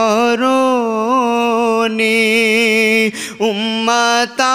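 A man singing a devotional Islamic salam unaccompanied, drawing out long ornamented notes, with short breaks for breath about three seconds in and near the end.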